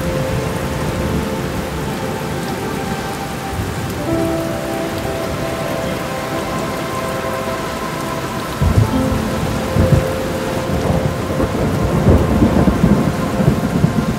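Steady heavy rain with rolling thunder. Two thunder rumbles come about nine and ten seconds in, and more rumbling follows near the end.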